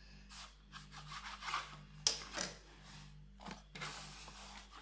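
A knife drawn through a stack of thin samosa pastry sheets on a plastic cutting board, trimming off the rough edges: a run of short scraping strokes, the two loudest about two seconds in, then a hand rubbing the sheets across the board.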